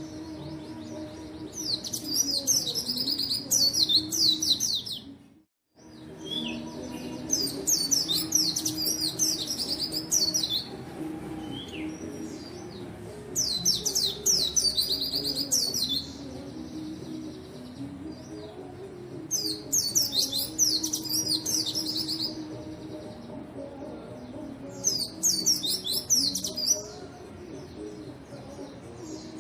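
White-eye (pleci) singing in full song: five bursts of rapid, high twittering, each two to three seconds long and about six seconds apart. A faint steady low hum sits underneath, and the sound drops out completely for a moment about five seconds in.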